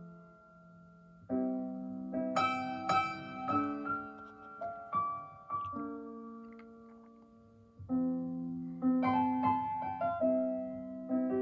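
Piano playing a slow introduction in chords, each chord struck and left to ring and fade before the next.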